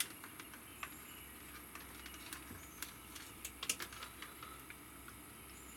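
Faint, irregular small clicks and rustles of fingers handling a thin wire and sliding heat-shrink tubing along it, over a steady low hum.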